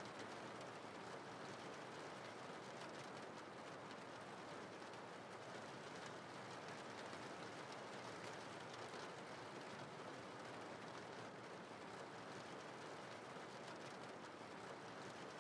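Steady rain falling: an even hiss with a faint patter of drops.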